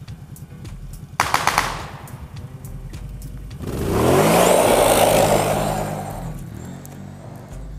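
Kawasaki Brute Force ATV engine revving up as the quad spins, tyres throwing gravel and dust in a loud rush that fades away. A rapid burst of gunfire rattles about a second in.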